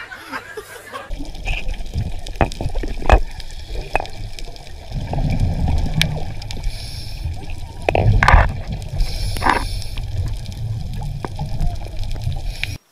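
Underwater sound picked up by a diver's camera: a steady low rumble with the gurgling of exhaled scuba bubbles, which swells twice, and scattered clicks.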